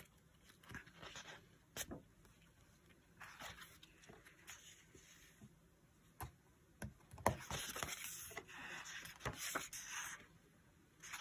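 Faint rustling and light taps of paper and sticker sheets as stickers are handled and pressed onto a planner page, with a few sharper clicks and a longer stretch of rustling in the second half.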